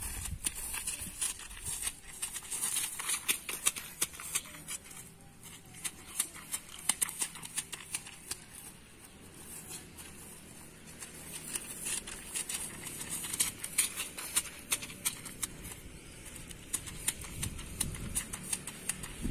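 Quick, light footsteps of studded football boots on grass during a cone agility drill: rapid, irregular patter in bursts, busiest a few seconds in and again in the second half.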